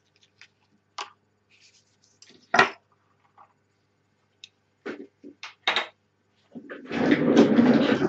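A thick double-shot keycap being pulled off a Honeywell Micro Switch 78SD11 Hall-effect keyboard: scattered short plastic clicks and knocks, the loudest about two and a half seconds in. Near the end comes a longer, denser stretch of handling noise.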